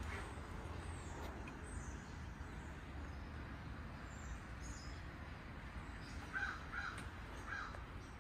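A crow giving three short caws in quick succession about six seconds in, over a low steady rumble.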